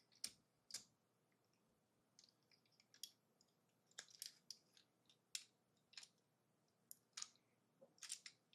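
Quiet, irregular small clicks and taps of LEGO plastic pieces being handled, about a dozen over several seconds.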